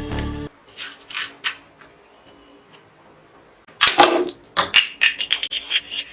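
Background music stops, then a few scattered plastic clicks. Near the end a rapid flurry of sharp clicks and rattles follows as a plastic toy gun is handled and worked.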